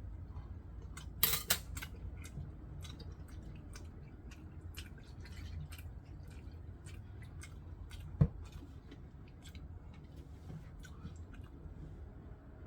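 Small clicks and handling noises on a tabletop, with a short loud rustle or scrape about a second in and a single dull thump a little past eight seconds.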